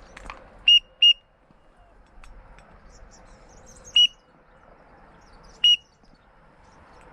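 A waterfowl whistle call blown in short, sharp single peeps at a high steady pitch: two close together about a second in, then one more at about four seconds and one near six. The peeps are meant to call in teal that are flying toward the blind.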